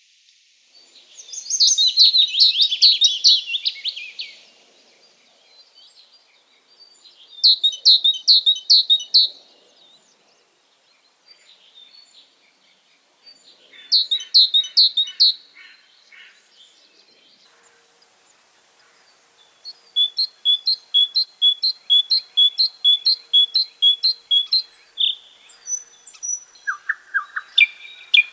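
Songbirds singing in the forest: three short, rapid song phrases, each one to three seconds long, with pauses between them. In the second half a long series of evenly repeated notes comes at about three a second, followed by another quick phrase near the end.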